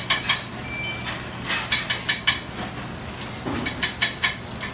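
Metal utensils clinking against pans and containers at the range, in three bursts of sharp clinks, over a steady low hum.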